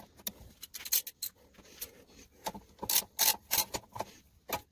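A charging-coil wire and fingers rubbing and scraping against the engine case as the wire is fed through a tight gap on a small engine: a run of short, irregular rasps, loudest about three seconds in.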